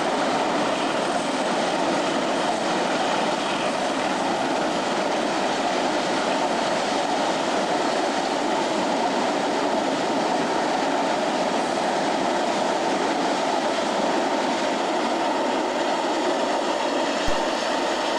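A freight train's wagons rolling past on the main line: a steady, loud noise of wheels on rail, with a short click near the end.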